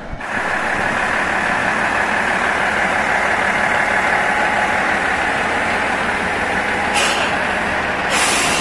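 Diesel railcar idling close by: a steady engine drone. Two short hisses of released compressed air come about seven and eight seconds in.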